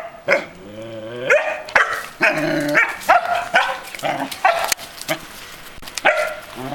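A Belgian Malinois puppy and an old Belgian Shepherd at play, with a string of short, high barks. Near the start there is one drawn-out call that rises in pitch before the barking.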